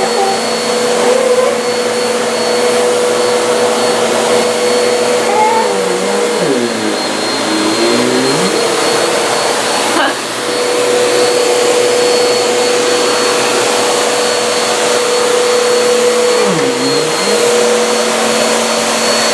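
Household vacuum cleaner running with a steady motor hum and airflow hiss; its pitch sags and recovers twice, once around six seconds in and again near the end.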